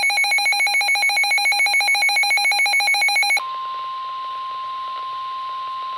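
Emergency alert tones from a weather radio broadcast: a rapidly pulsing electronic tone, which about three and a half seconds in gives way to a single steady tone of about 1 kHz, the NOAA Weather Radio warning alarm tone that announces a warning.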